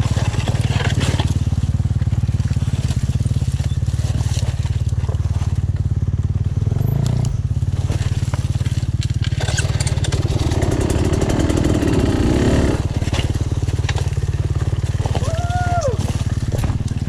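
Off-road motorcycle engine running at low revs, rising briefly about seven seconds in, with a spell of rougher, noisier running from about ten to twelve and a half seconds.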